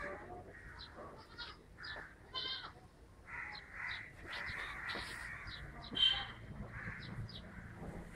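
Repeated short animal calls, some harsh, coming in scattered bursts.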